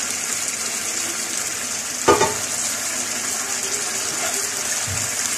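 Beef and tomato masala sizzling and bubbling in oil in a non-stick wok as its water cooks off, a steady high hiss. A brief sharp sound about two seconds in.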